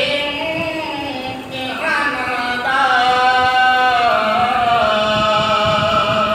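A man's voice singing a Punjabi naat, unaccompanied, into a microphone, with ornamented pitch turns and then one long held note in the second half.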